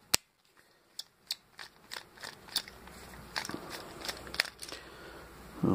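Screwdriver prying at an electrical switch to free its copper contacts: irregular light clicks and scrapes of steel against the switch's Bakelite body and metal parts.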